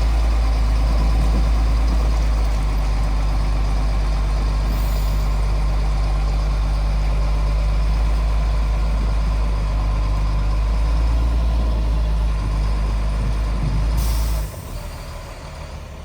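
Engine of a 6x6 vehicle running steadily under load as it drags a heavy boulder on a chain. About 14 seconds in there is a brief hiss, and then the engine sound drops off sharply.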